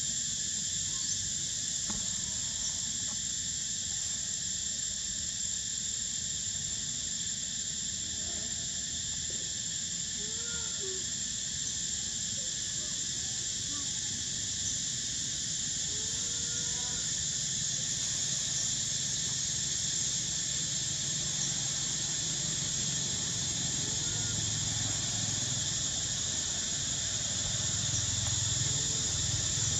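Steady high-pitched drone of forest insects, with a few faint short rising-and-falling calls from long-tailed macaques scattered through it.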